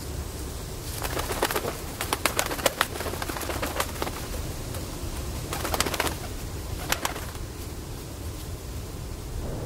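Bird wings flapping in two flurries of sharp claps and flutter, one starting about a second in and another around six seconds, over a low steady rumble.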